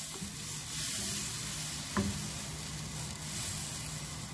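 Watery butter-and-flour roux sizzling on high heat in a nonstick frying pan while a wooden spatula stirs it, with a single knock about two seconds in.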